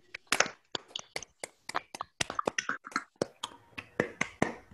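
Several people clapping into their own microphones on a video call: scattered, uneven, sharp separate claps rather than a steady wash of applause.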